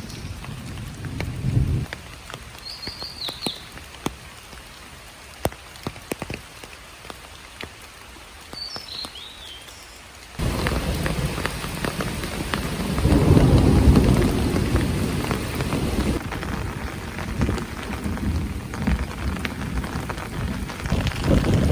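Rain falling in a forest during a thunderstorm, with scattered drips and a few short high chirps in the first half. About ten seconds in the rain suddenly becomes much heavier and louder, and a long low rumble of thunder follows a few seconds later.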